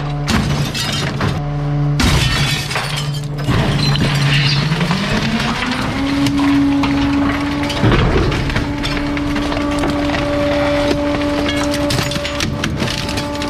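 Garbage truck crushing bulky waste, with sharp cracks and breaking through the whole stretch. Under them the truck's engine hums steadily, then revs up about five seconds in and holds at the higher speed.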